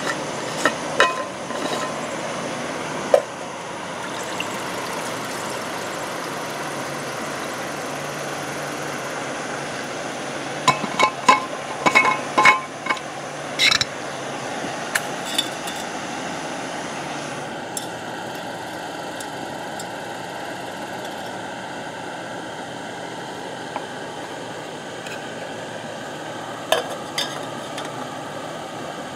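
Metal cookware clinking: a small aluminium cook pot and a stainless steel water bottle tapping and knocking together, with a quick run of ringing clinks about halfway through, over a steady outdoor background hiss.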